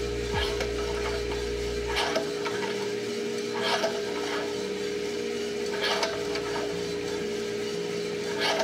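Mill City 1 kg drum coffee roaster running with a steady hum as the beans tumble. A short scraping rasp comes about every two seconds, four times. A lower hum drops away about two seconds in.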